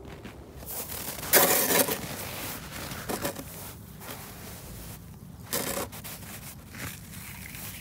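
Scraping and rubbing of toy cars being moved by hand: three short scrapes, the loudest about a second and a half in, with softer ones near three and five and a half seconds.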